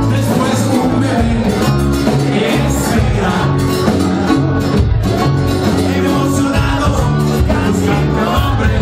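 A live band playing loud, continuous music, with electric guitars and keyboard over steady low bass notes, heard through a phone's microphone from within the crowd.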